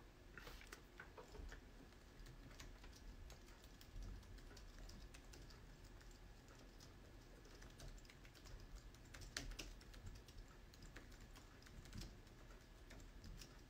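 Faint typing: light, irregular key clicks in quick runs, with a few louder taps.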